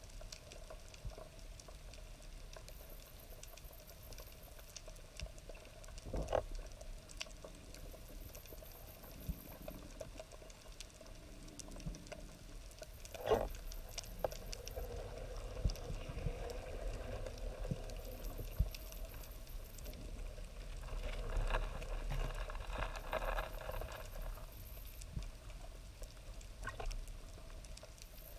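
Underwater ambience heard through a camera housing: a faint, steady crackling patter of small clicks, with a few louder knocks, the clearest about six and thirteen seconds in, and a rush of water noise a little after twenty seconds.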